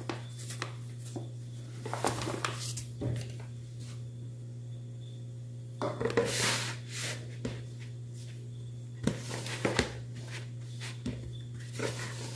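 A utensil scraping and knocking against a mixing bowl as flour is stirred into a sticky bread dough, in scattered short bursts over a steady low hum.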